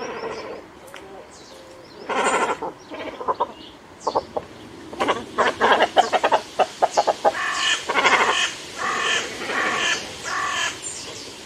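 Little cormorants calling: harsh croaking calls in short bursts, with a fast rattling run of calls in the middle, over faint high chirps of small birds.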